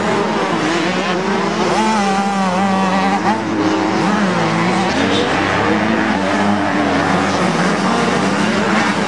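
Several 85 cc two-stroke motocross bikes racing, their engines revving up and down over one another.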